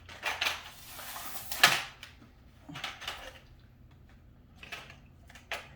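Handling noises from exercise-bike parts and their packaging during assembly: a series of short rustles and knocks, the sharpest and loudest about a second and a half in.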